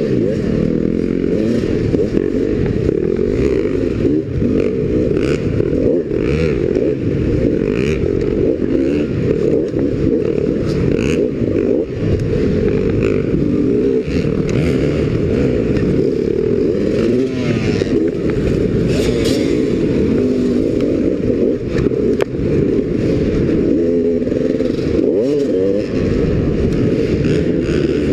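Dirt bike engine heard from on board, revving up and down without a break as it is ridden hard, with scattered knocks and scrapes of the bike against the track and obstacles.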